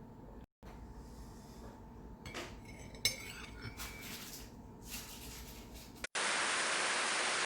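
A few soft clinks of kitchenware over quiet room tone. About six seconds in, a steady hiss starts abruptly, lasts just over a second and cuts off.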